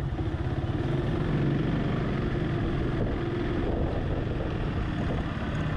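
Steady engine and road rumble of a car driving slowly, heard from inside the cabin.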